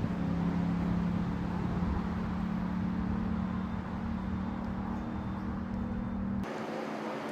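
An engine running steadily with a low, even hum. About six and a half seconds in, the sound changes abruptly and the low hum drops out.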